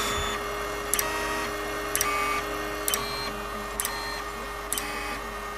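Kossel Clear delta 3D printer running automatic bed levelling: its stepper motors whine as the carriages move, and a short click comes about once a second as the probe touches the bed at each measuring point.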